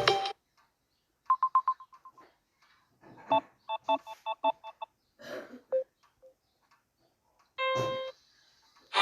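Samsung Galaxy A30 ringtones and alert tones previewed one after another, each cut short: a run of about eight quickly fading beeps, then a quick run of chiming pulses, then a held tone near the end.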